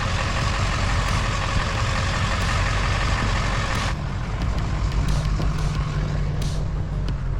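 Recovery truck's engine and tyre noise heard from inside the cab while it drives slowly on an icy road. About four seconds in the hiss drops away and a low steady engine hum is left.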